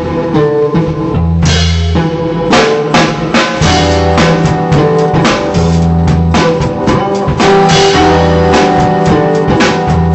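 Loud music with a drum kit and guitar over a bass line of long held low notes that repeat about every one and a half seconds.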